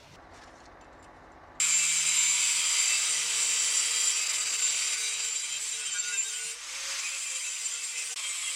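A power tool starts abruptly about one and a half seconds in and runs steadily with a harsh, high-pitched grinding sound and a steady hum underneath, easing briefly near the end before carrying on.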